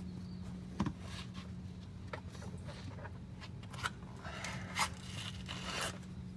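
Scattered small clicks, scrapes and light metal clinks of car parts and hardware being handled during a starter replacement, over a steady low hum.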